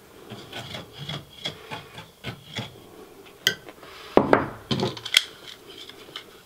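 Primer dauber swabbing purple PVC primer onto PVC drain fittings: a run of short rubbing strokes, then a few louder clicks and knocks as the plastic parts are handled, a little after the halfway point.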